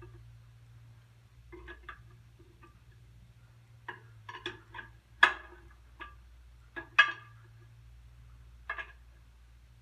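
Irregular metallic clicks and clinks of a wrench on the clutch adjustment nuts of a John Deere 60 as they are tightened a little at a time. The two loudest clicks come about five and seven seconds in.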